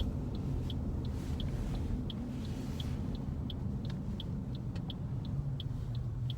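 Steady low rumble of a car heard from inside the cabin, with a light, regular ticking about three times a second.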